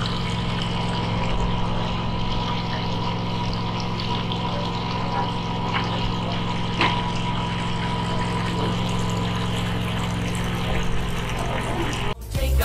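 Steady drone of an engine or motor running at an even pitch, with a hiss over it. There is a small click about seven seconds in, and the drone cuts off just before the end.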